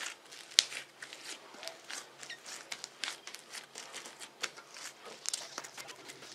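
Pink floam slime packed with white foam beads being squeezed and pressed by hand, giving a dense run of crunchy crackles and small pops, with one louder crack about half a second in.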